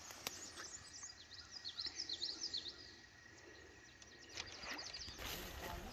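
Faint birdsong outdoors: quick runs of short, high chirping notes about two seconds in, over a low steady background hiss that grows a little louder near the end.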